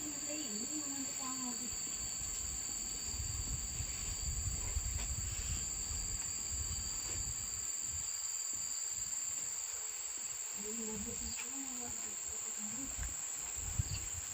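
Insects trilling steadily in a continuous high-pitched tone, with a fainter second tone below it, over a faint low rumble.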